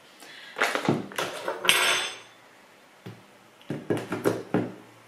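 Clinks and knocks of a glass sugar jar and a metal spoon being handled and set down on a kitchen counter, with one brighter ringing clink a little under two seconds in and a cluster of knocks near the end.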